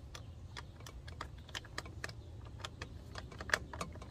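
Irregular light clicks and taps of a screwdriver and plastic plug parts being handled at a metal electrical box while a terminal screw is tightened on a 30-amp generator inlet plug.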